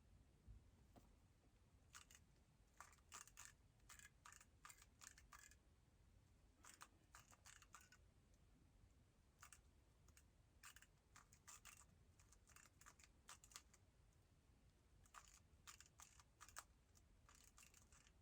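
Faint, quick runs of plastic clicks from a Moyu WRM 2020 speedcube's layers being turned, in groups lasting a second or so with short pauses between them, as in a cube being solved move by move.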